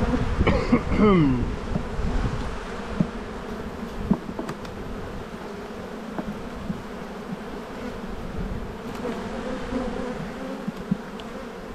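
Honeybees buzzing over an open Langstroth hive box: a steady colony hum. In the first second or two, single bees fly close past with swooping pitch, and there are a few light knocks about four seconds in.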